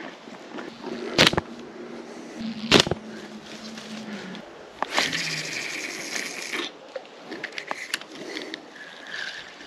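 Two sharp knocks close to the microphone, then a fast, rattling whir for about two seconds, a spinning fishing reel being wound, with scattered light clicks of the rod and reel being handled.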